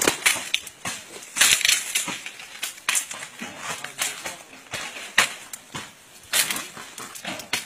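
Woven bamboo fencing being wrenched down and broken: an irregular run of sharp cracks, snaps and crashes, several bunched together about a second and a half in and again around six and a half seconds.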